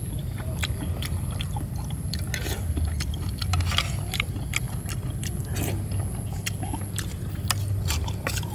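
A person eating soup with a spoon and chopsticks: chewing, with many short clicks scattered through, over a steady low rumble.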